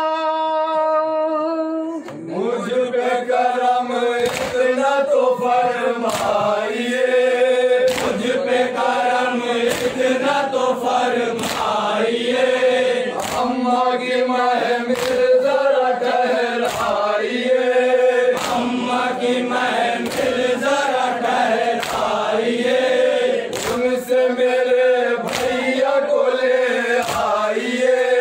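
A group of men chanting a noha, a Shia mourning lament, in unison, with rhythmic chest-beating (matam) slaps that keep the beat. The slaps start about two seconds in, after a held sung note.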